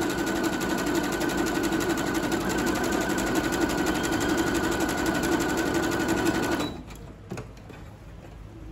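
Singer computerized sewing machine stitching a baby picot hem at a short stitch length, running at a steady, even speed, then stopping abruptly about two-thirds of the way through. A single click follows shortly after it stops.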